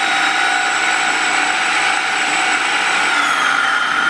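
Kenwood food processor running at full speed, blitzing rolled oats down to a powder: a steady, loud motor whine over the hiss of the oats being chopped. At the very end it is switched off and the whine starts to fall as the blade slows.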